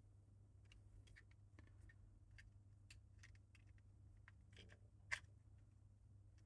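Faint clicks and taps of a plastic building-brick puzzle box being turned and worked in the hands, with one sharper click about five seconds in. A low steady hum lies underneath.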